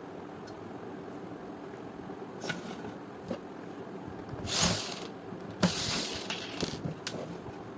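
Clicks and a few short scrapes of small hard parts being handled and worked on, with two louder scraping rasps in the second half, over a steady background hum.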